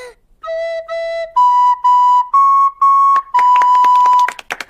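Descant recorder playing a short simple tune of seven notes: two lower notes, then four louder higher ones, ending on a long held note. A brief patter of clapping follows near the end.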